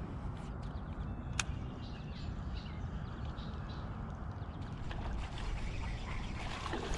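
Open-air ambience from a small fishing boat on a calm lake: a steady low rumble of wind on the microphone and water lapping at the hull, with one sharp click about a second and a half in.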